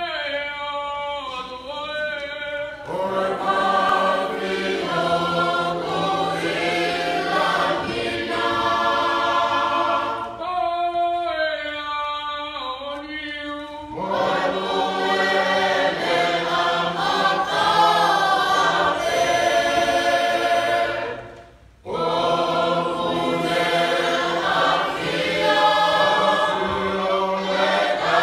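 Tongan youth choir singing a hiva usu hymn unaccompanied, in many voices. A few voices carry the line at the start and again about ten seconds in before the full choir comes back in. The singing breaks off briefly about three-quarters of the way through.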